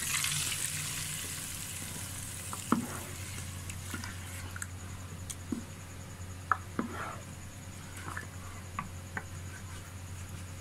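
A spoon stirring thick kadhi in a pot, with scattered short knocks and scrapes against the pot. A sizzling hiss from the freshly added cumin tempering fades away over the first couple of seconds.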